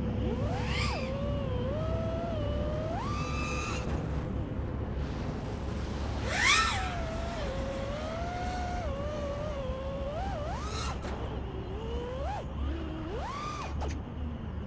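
FPV quadcopter's brushless motors whining, the pitch sweeping up and down as the throttle changes. There are several quick climbs in pitch, and the sharpest and loudest punch comes about six and a half seconds in. A steady low rumble of prop wash runs underneath.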